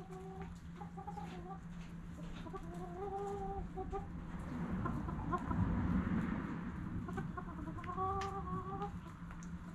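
Backyard hens clucking, with several drawn-out calls of about half a second each, among small ticks of beaks pecking grain off the ground. About halfway through, a louder rustling swells up for a couple of seconds and fades.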